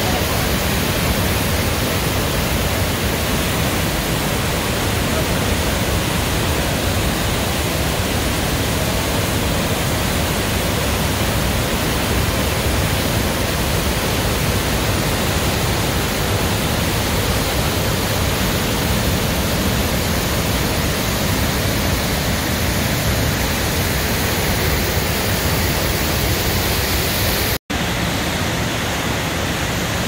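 Loud, steady rush of fast-moving water, a full, even hiss from deep to high. It breaks off for an instant near the end and carries on slightly softer.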